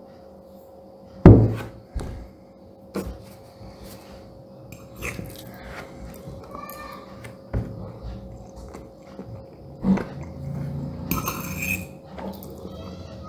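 Metal fork clinking and scraping against a ceramic plate of risotto, with one sharp clink about a second in the loudest and several lighter clinks after, between soft eating sounds of a mouthful being taken and chewed.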